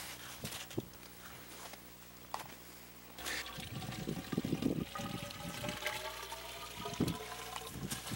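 Water gurgling and splashing at a hole drilled through lake ice as a container is filled. Its tone rises slowly from about halfway through.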